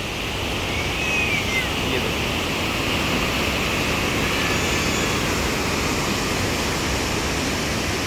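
Glacial meltwater stream rushing down its rocky gorge, a steady, even roar of water.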